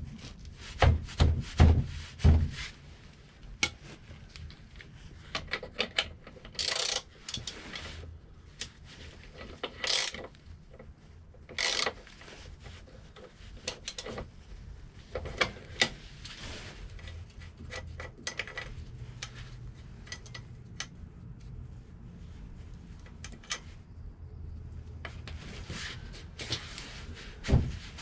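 Scattered knocks, clicks and short scrapes of tools and metal parts being handled while a scooter's rear wheel is refitted, with a burst of several loud knocks in the first couple of seconds.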